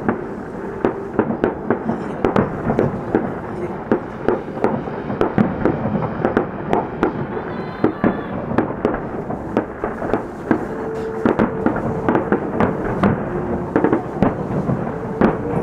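Aerial fireworks bursting in quick, irregular succession: many sharp bangs and crackles, several a second.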